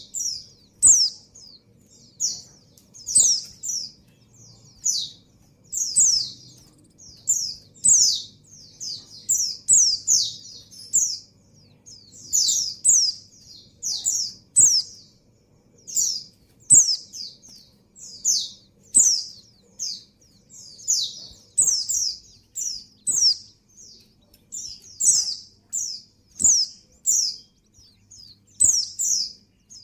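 Female white-eye (pleci) calling in breeding condition for a male: quick, high, thin chirps, each sliding downward, given in little clusters of two to four and repeated every second or two.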